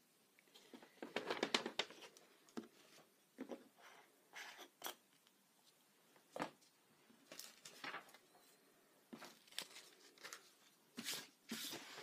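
A sheet of paper card rustling as it is handled, with scattered soft taps and clicks from small objects on the desk.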